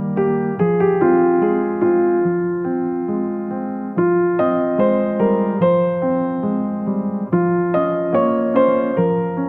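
Background music played on a piano: slow chords struck every half second to a second, each left to ring and fade.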